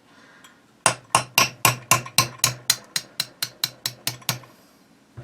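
Hammer tapping a pin punch to drive the ejector pin out of a DERYA TM22-A rifle's alloy receiver: about fifteen quick, even taps at roughly four a second, starting about a second in and stopping near the end, each with a short metallic ring.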